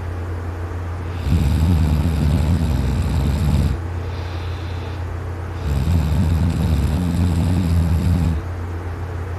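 A man asleep on his side snoring very loudly: two long, rasping snores, each about two and a half seconds, about four seconds apart, with a steady low hum between them.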